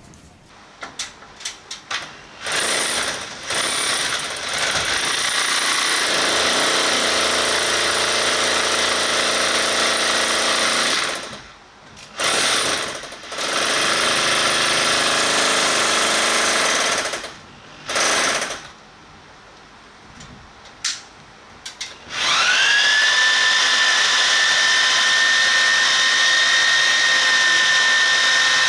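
Power drill boring through a house wall for a fiber-optic line, running in several long runs with short bursts and brief stops between. Near the end it spins up with a rising whine and then runs steadily.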